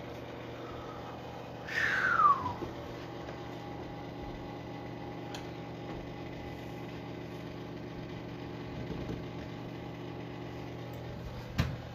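Steady machine hum made of several steady tones. About two seconds in, a loud short squeak falls in pitch.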